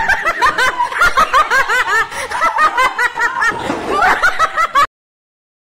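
People laughing hard in quick, high-pitched ha-ha-ha bursts, cut off abruptly to dead silence near the end.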